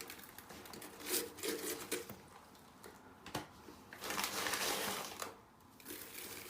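Handfuls of mirabilite (Glauber's salt crystals) being scooped and scattered into a hollowed-out watermelon: gritty crunching and rustling in several short bursts, the longest near the end, with one sharp click about three seconds in.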